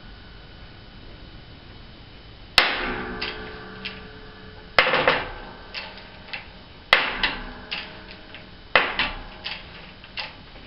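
Hydraulic shop press working a two-stroke snowmobile crankshaft: starting about two and a half seconds in, four loud, sharp metallic bangs come about two seconds apart. Each rings briefly and is followed by lighter clicks.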